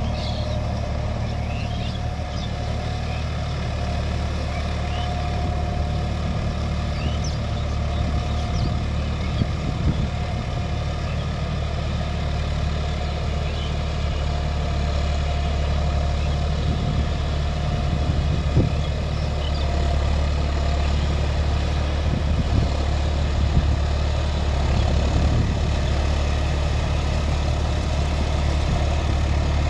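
John Deere 5310 tractor's three-cylinder diesel engine running steadily as it pulls a rotary tiller through wet, muddy field soil, with a few short knocks past the middle. It gets a little louder in the second half as the tractor comes closer.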